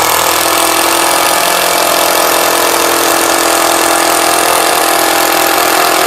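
Mollar 12-volt cordless impact driver running continuously under load, driving a screw into wood at a steady, loud level.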